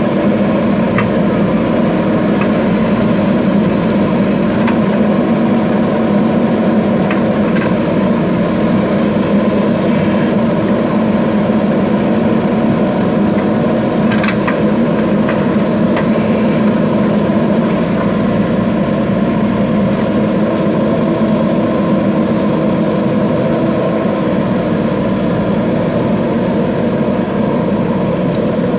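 Backhoe loader's diesel engine running steadily under work, with a few sharp metallic knocks scattered through.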